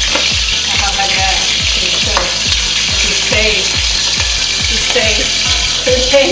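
Battered squid deep-frying in a wok of hot oil, giving a loud, steady sizzle while a wire skimmer stirs the pieces. Background music with a steady low beat runs underneath.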